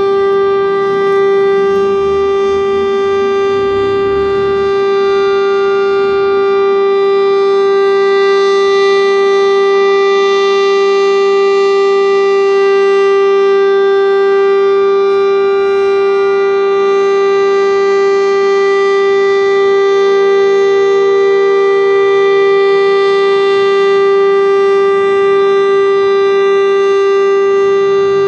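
Federal Signal STL-10 outdoor warning siren sounding during its monthly test, holding one steady, unchanging tone with strong overtones.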